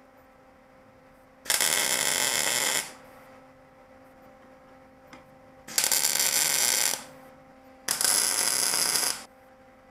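MIG welder arc-welding 14-gauge steel square tubing: three short welds, each about a second long, with a faint steady hum between them.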